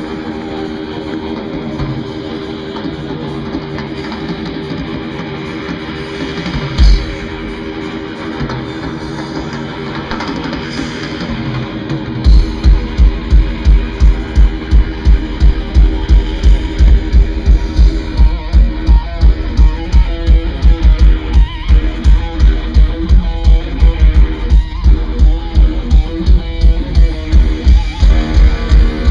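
Live thrash metal band playing: distorted electric guitars ring on alone at first, with one loud hit about seven seconds in. About twelve seconds in the drums come in with a fast, steady pounding beat under the guitars.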